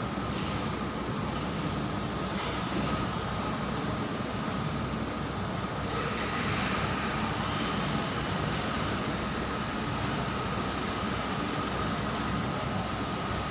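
A 200 kg gas-fired furnace running: a continuous, even rushing noise from the burner and blower, with a thin steady whine over it.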